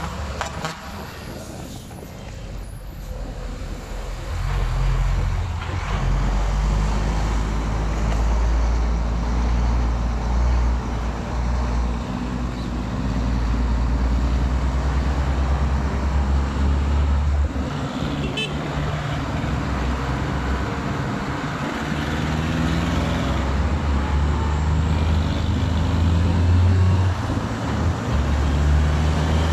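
Road traffic heard from a moving vehicle: a steady low engine rumble that grows louder about four seconds in, its hum drifting up and down in pitch as the vehicle speeds up and slows.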